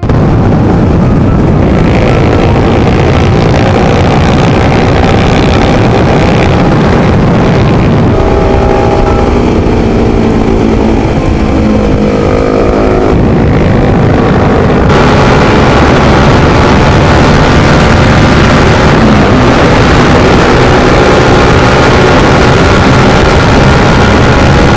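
Honda CBR sport motorcycle under way, its engine running with the pitch rising and falling as speed changes, under a heavy rush of wind on the microphone.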